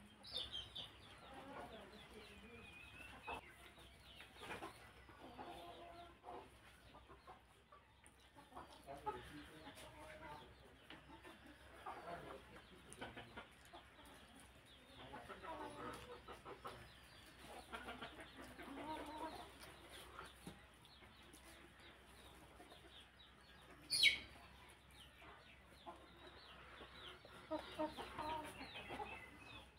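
Chickens clucking in the background in irregular short calls, with one sudden sharp, loud sound about 24 seconds in.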